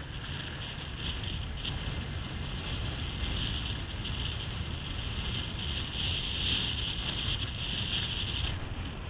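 Steady wind buffeting the microphone, a low rumble with a bright hiss above it that swells and eases.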